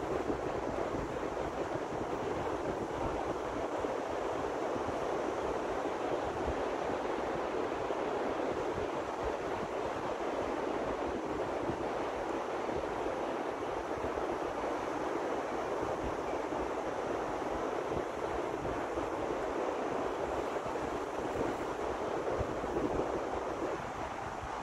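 Steady wash of ocean surf, with wind buffeting the microphone in an uneven low rumble.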